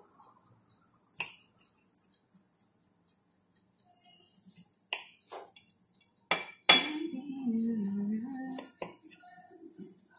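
A table knife clinking and scraping against a ceramic plate while slicing a sausage: a few scattered sharp clinks, the loudest about two-thirds of the way through, with a voice heard briefly just after it.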